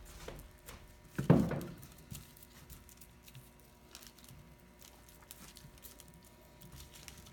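Foam brush spreading a thick coat of wood glue over a wooden board: faint soft brushing and light ticks. One sharp knock sounds about a second in.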